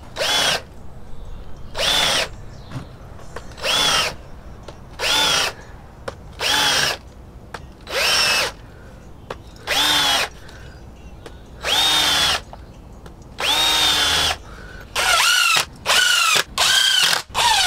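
A DeWalt cordless drill driving screws into pallet-wood slats in short runs, about nine of them, the motor rising in pitch as it spins up each time. The bursts come shorter and quicker near the end.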